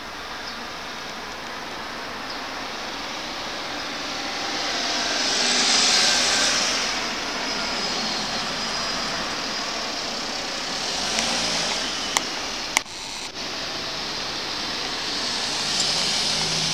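Road traffic: cars passing one after another, a rushing tyre hiss that swells and fades three times. Two sharp clicks and a brief dip a little past the middle.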